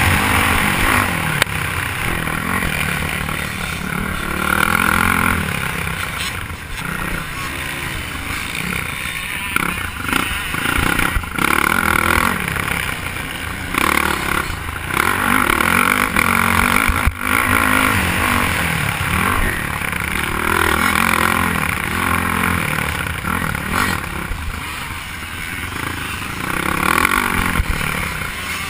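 Motocross bike engine heard from a camera on its handlebars, revving up and dropping back again and again as the throttle is opened and closed over the track. A few sharp knocks cut in along the way.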